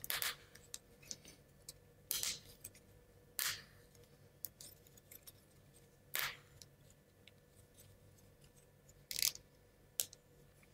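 Scattered clicks and light knocks of small wooden model-kit parts being pressed together and handled, about half a dozen spaced a few seconds apart.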